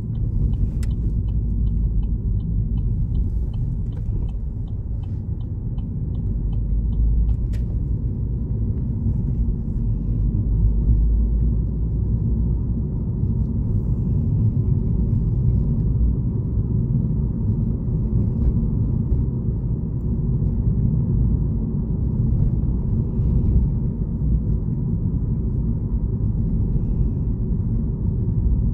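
Steady low rumble of a car's engine and tyres heard from inside the cabin while driving. For the first five seconds or so a turn indicator ticks, quick and even.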